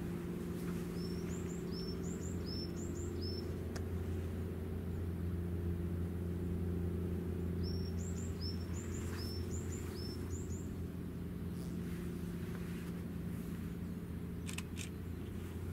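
A steady low mechanical hum with a few faint clicks near the end. Over it a small songbird sings two short phrases of quick, high, rising chirps, about six seconds apart.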